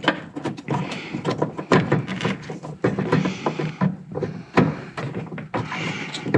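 Repeated small plastic clicks and knocks as an LED headlight bulb is handled and worked into the headlight housing, over background music.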